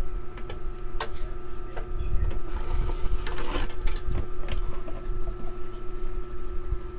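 Handling noise from a CRT TV's circuit board and its wiring being lifted and turned over: a few sharp clicks and a brief rustling scrape about halfway through, over a steady low hum and rumble.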